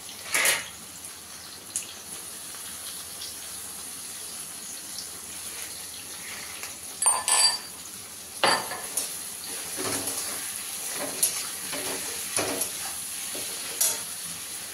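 A steel spatula stirring and scraping vegetables in a non-stick kadhai, with sharp metal scrapes and knocks against the pan every second or two. A soft sizzle of frying runs beneath.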